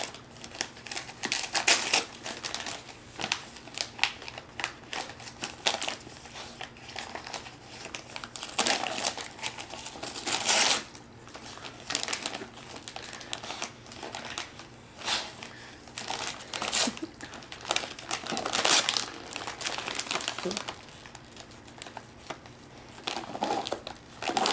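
Shiny gift-wrapping paper crinkling and ripping in irregular bursts as a German shepherd tugs it off a present with its teeth.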